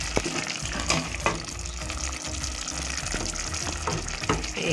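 Spinach and tomato sauce bubbling and sizzling in a cooking pot as a spoon stirs it, with a few knocks of the spoon against the pot.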